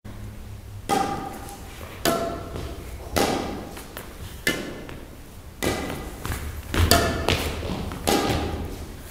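Badminton rally: rackets striking a shuttlecock back and forth, about eight sharp hits a little over a second apart, each with a short ringing decay, over a steady low hum.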